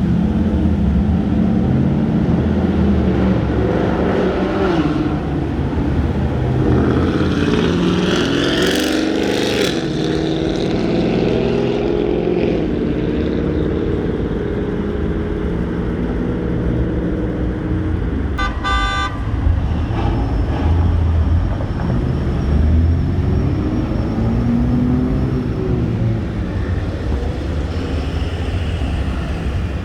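Road traffic: motor vehicle engines running and passing, pitch rising and falling, with one short car horn honk about two-thirds of the way through.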